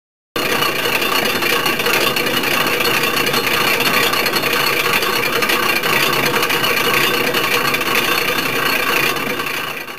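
The tower carillon's clockwork and pegged play drum running, a dense, steady mechanical rattle and clatter of gears and levers. It starts suddenly just after the beginning and fades out at the end.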